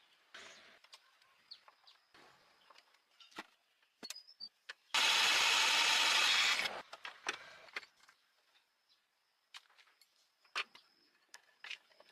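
Tool work on the truck: scattered clicks and knocks, with one loud burst of rushing noise lasting under two seconds about five seconds in.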